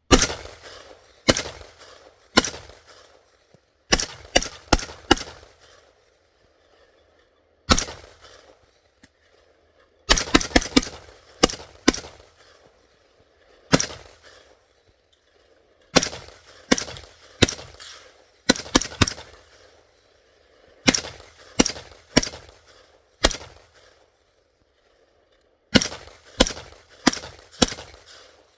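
Semi-automatic rifle fire from an AR-style rifle with a cold-soaked 3D-printed PLA lower receiver, emptying a 60-round drum. Single shots and quick strings of several shots come one to three seconds apart, and the rifle cycles every round without a stoppage.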